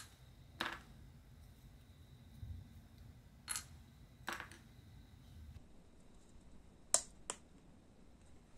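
Scattered light clicks of tweezers, a hobby tool and small model-kit parts being handled and set down on a cutting mat, about six in all, the last two close together near the end.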